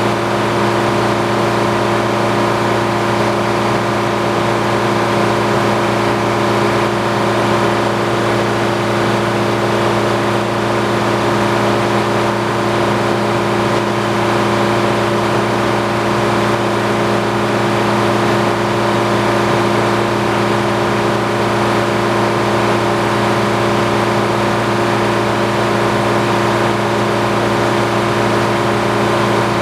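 Antique circular sawmill running steadily: a loud, constant machine hum at one fixed pitch, with no change in speed or load.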